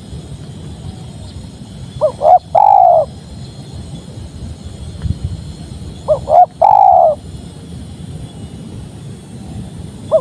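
Spotted dove (tekukur) cooing: two phrases about four seconds apart, each two short coos followed by a longer rolling coo.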